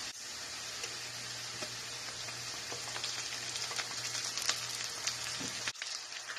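Sliced onions sizzling steadily as they fry golden brown in hot oil in a nonstick pan, with scattered small pops and crackles. A low hum underneath cuts off near the end.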